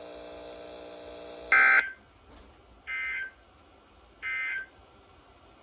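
Emergency Alert System end-of-message signal: three short, buzzy digital data bursts about a second apart, the first much louder than the other two. A faint steady hum comes before them.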